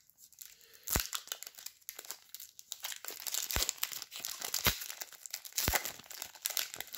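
Skybox Metal Universe trading cards being handled and flipped through: crinkling and rustling, with a sharp click about a second in and several more later on.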